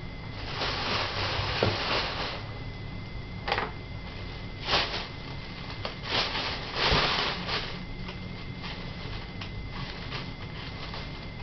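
Thin clear plastic bags crinkling and rustling as they are handled, in several bursts over the first seven or so seconds, then lighter crackles.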